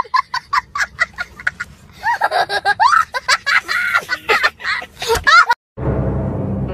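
A small child laughing hard: a quick run of short laughs, then high-pitched squealing laughs. About five and a half seconds in it cuts off, and steady, ominous music begins.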